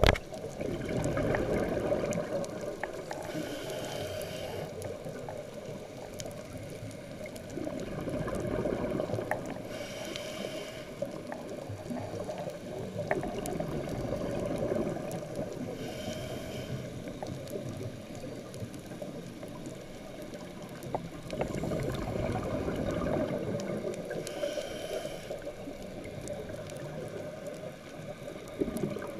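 Scuba diver's regulator breathing underwater, heard through a camera housing: a short hiss of inhaled air, then a long gurgling rush of exhaled bubbles, repeating about every six to seven seconds.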